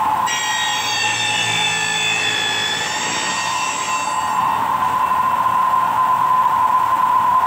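Milling machine running with a steady whine. From just after the start, for about four seconds, the cutter is fed into a metal T-section and sets up a high, ringing screech of several tones at once. The screech then stops and the machine runs on unloaded.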